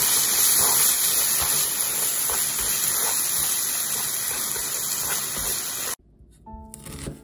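Diced bacon, onion and tomato sauce sizzling in a frying pan as they are stirred: a loud, steady hiss that cuts off suddenly about six seconds in. Light background music follows in the last second.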